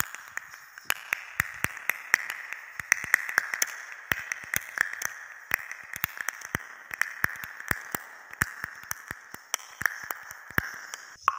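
An irregular run of sharp clicks or taps, several a second, over a faint steady hiss, with a brief break near the end.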